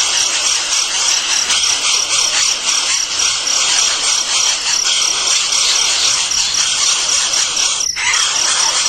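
Steady, high-pitched chorus of insects, crickets or cicadas, with a fast pulsing trill, cut off briefly about eight seconds in.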